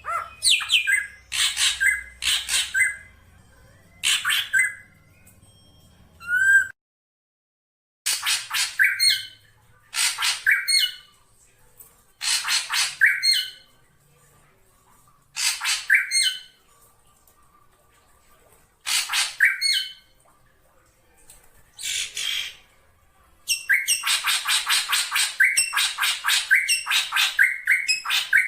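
Black drongo calling: clusters of short, rasping calls, each cluster of several in quick succession ending in sharp hooked notes. The clusters repeat every few seconds, with a brief dead-silent break early on and a dense unbroken run of calls near the end. The uploader presents it as a female calling her mate.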